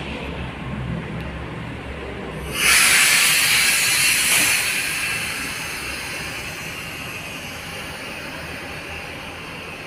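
Sudden loud hiss of compressed air being released about two and a half seconds in, strong for about two seconds and then tapering off over several seconds. A low rumble sits underneath before the hiss.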